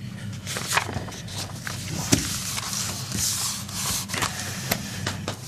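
Sheets of paper being handled and shuffled on a desk, with irregular rustles and light taps, over a steady low hum.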